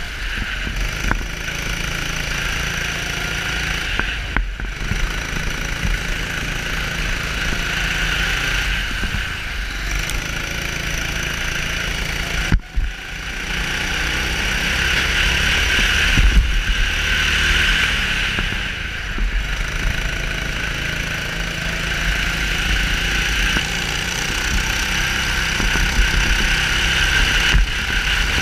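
Onboard sound of a CRG Centurion rental kart's 270 cc engine at racing speed, its pitch rising and falling with the throttle through the corners. There is a brief break in the sound about halfway through.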